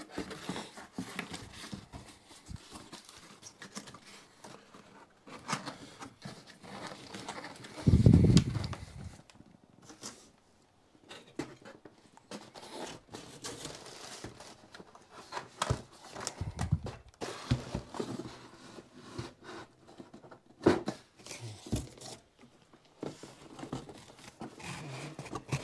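Cardboard boxes and packaging being handled: rustling, scraping and crinkling, with scattered clicks. A heavy thump comes about a third of the way in, and a softer one a little past the middle.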